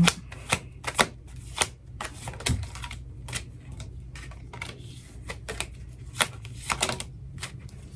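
A deck of tarot cards being shuffled by hand: a run of irregular soft slaps and clicks, two or three a second.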